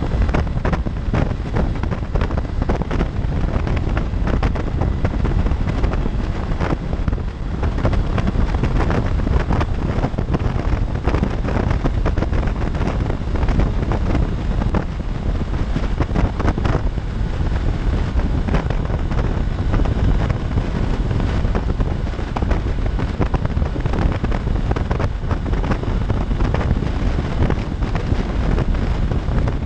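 Steady, loud wind rush buffeting the microphone of a motorcycle riding at freeway speed, with road and engine noise mixed in underneath.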